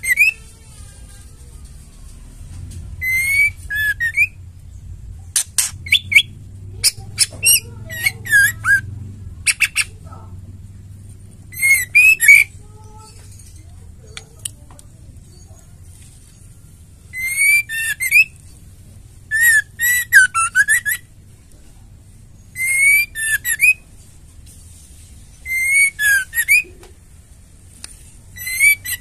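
White-rumped shama calling: short phrases of whistled notes sweeping up and down, repeated every few seconds. Between about five and nine seconds in comes a run of harsh, clicking chatter.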